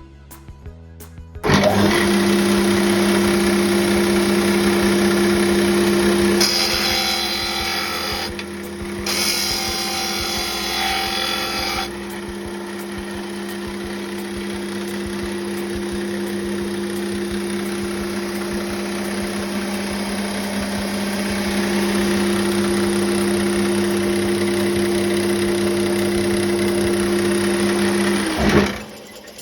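Electric motor of a bench power tool switching on, running with a steady hum, and switching off near the end, the hum dropping away as it spins down. A few seconds after start-up a harsher, hissier noise of the tool working material joins for about five seconds, with a short break in the middle.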